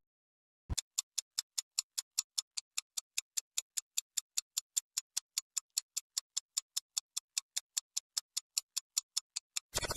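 Clock ticking fast and evenly, about five ticks a second, ending in a quick flurry of ticks.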